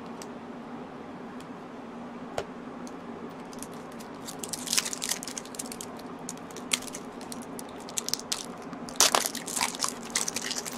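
Foil wrapper of a Magic: The Gathering booster pack crinkling and tearing as it is pulled open by hand, in clusters of sharp crackles that start about four seconds in and are thickest near the end.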